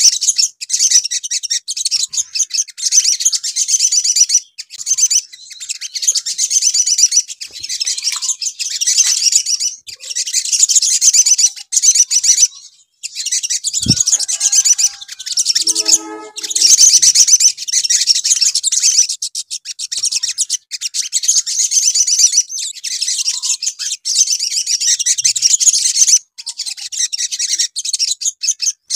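Olive-backed sunbirds singing: loud, fast, high-pitched chattering song in phrases a few seconds long with short breaks, the male song used as a lure to set other sunbirds singing. A single low thump about halfway through.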